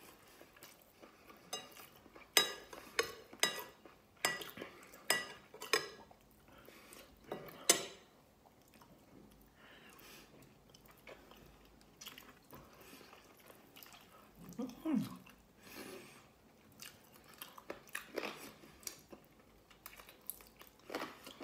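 Close-up chewing and mouth clicks of someone eating rice and meat by hand, in irregular sharp smacks. A short hum of the voice comes about two-thirds of the way through.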